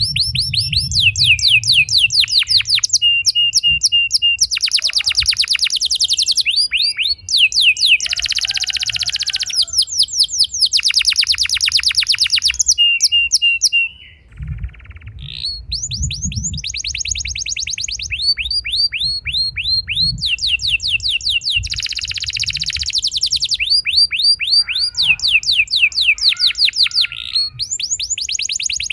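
Domestic canary singing a long, continuous song of rolling trills: runs of rapid repeated notes, each run at its own speed, switching between fast rolls and slower chirps, with a brief pause about halfway through.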